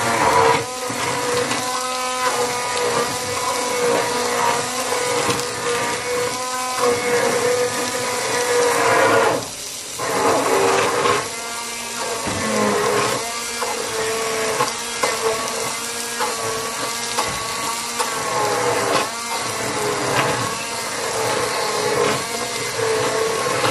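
Handheld immersion blender running in a pot of soup, pureeing cooked cauliflower: a steady motor whine that wavers in pitch as the blade meets the load. It dips briefly about nine and a half seconds in, then runs on.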